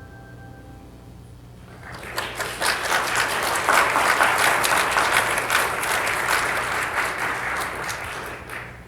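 Last ringing bell tones fading out, then an audience applauding from about two seconds in, cutting off just before the end.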